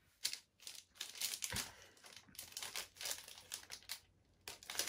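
Plastic wrapper of a Galaxy chocolate bar crinkling in the hands, a string of short, sharp rustles with brief pauses between them.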